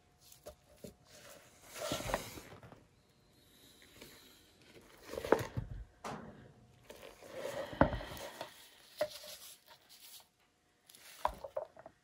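Gloved hands tilting and shifting a canvas board on a plastic-covered work surface: irregular scrapes, rustles and knocks, the sharpest about five and eight seconds in.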